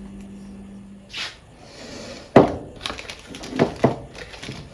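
Objects being handled and set down: a sharp knock about two and a half seconds in, then several lighter knocks and rustles. A steady low hum stops about a second in.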